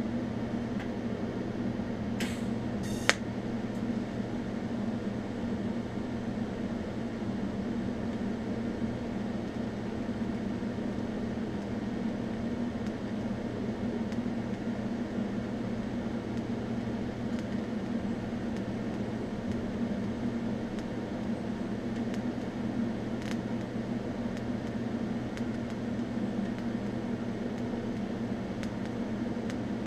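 TIG welder running an arc on thin mild steel and stainless sheet, a steady electrical hum throughout. A couple of sharp clicks about two to three seconds in.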